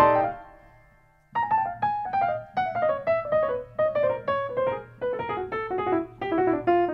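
Piano music. A chord dies away at the start, and after a second's pause a melody of single notes, a few a second, resumes and steps mostly downward.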